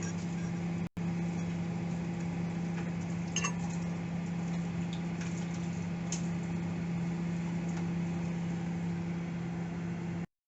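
Microwave oven running: a steady electrical hum with a few faint clicks, cutting off abruptly near the end.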